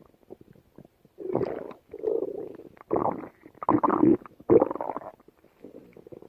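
Human stomach growling: a run of about five gurgling rumbles, beginning about a second in, with short gaps between them and a faint one near the end.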